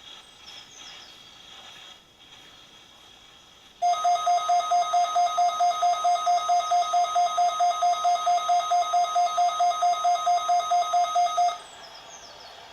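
Weather radio alert alarm: a loud electronic pulsed tone, about five beeps a second, starting about four seconds in and cutting off after some eight seconds. Faint radio hiss lies under it and around it.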